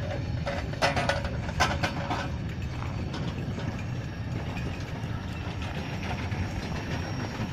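Finnish Hr1 'Ukko-Pekka' steam locomotive 1009 slowly moving a string of freight wagons past: a steady low rumble, with a few metallic clanks in the first two seconds.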